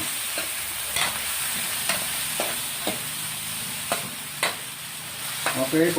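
Chicken and pork pieces sizzling as they sauté in hot oil with garlic and onion, with a utensil scraping and knocking against the pan now and then as the meat is stirred.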